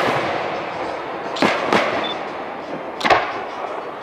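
Aerial firework shells bursting: four sharp bangs, one at the start, two close together about a second and a half in, and one about three seconds in, each followed by a trailing echo.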